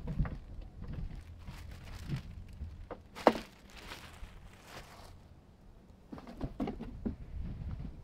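Packaging being handled: plastic wrap and foam rustling as they are pulled off a portable power station, with scattered knocks and clatter. A sharp knock about three seconds in is the loudest sound, followed by a couple of seconds of rustling.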